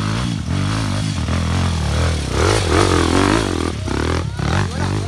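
Dirt bike engine revving up and down under throttle on an enduro trail, with some clattering mixed in.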